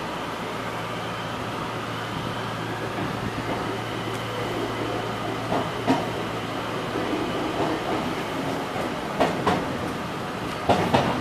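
Enshu Railway train 2007F pulling away and picking up speed, heard from inside the front car: a steady hum under a whine that rises in pitch. In the second half the wheels knock a few times over rail joints and points.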